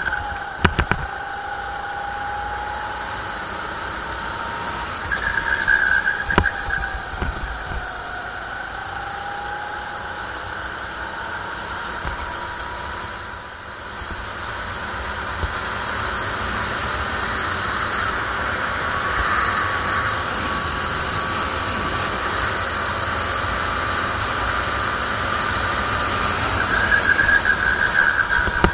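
270cc four-stroke rental kart engine running hard at speed, recorded onboard, its pitch falling as the driver lifts for corners and rising again on the throttle, over a hiss of wind. Twice, briefly, the tyres squeal through a corner.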